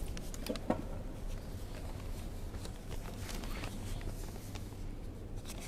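Low steady hum and the room ambience of a large prayer hall, with faint rustling and scattered small clicks; a short, faint pitched sound comes about half a second in.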